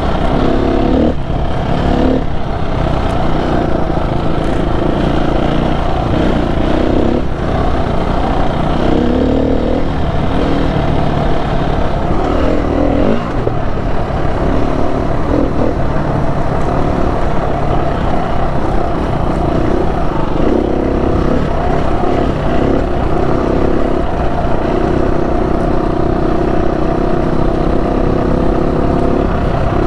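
Dual-sport motorcycle engine running under way, its pitch shifting up and down several times with throttle and gear changes.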